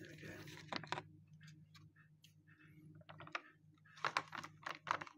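Small clicks and taps of a knife cutting crumbly red Leicester cheese on a plastic chopping board, a few about a second in and a denser run between three and five seconds in, over a faint steady hum. The camera being handled adds some of the later knocks.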